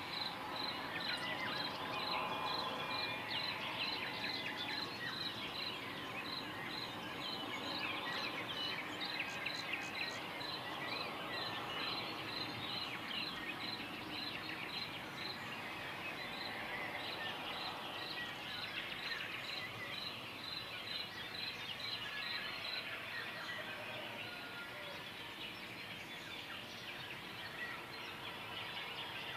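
Dawn chorus of many birds chirping and trilling. A high note is repeated about twice a second through it; it pauses about halfway through, comes back briefly and stops about three quarters of the way in.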